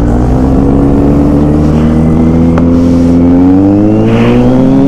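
Motorcycle engine pulling under acceleration, its pitch rising slowly and steadily as the bike gathers speed.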